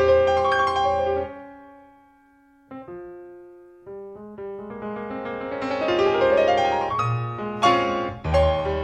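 Background piano music. The notes die away almost to silence about two seconds in, then resume softly and build up with rising runs of notes.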